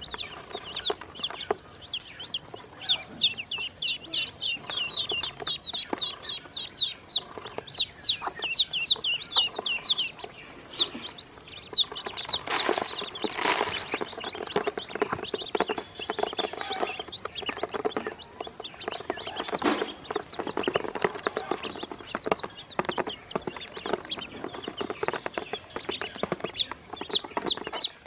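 Baby chicks and ducklings peeping: rapid, high, falling cheeps in quick runs, thickest in the first third and again near the end, over many small taps of beaks pecking feed off a plastic basin. Two short bursts of noise come near the middle.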